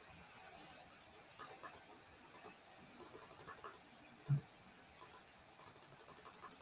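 Faint clicking of a computer keyboard and mouse in short quick bursts, with one dull thump about four seconds in.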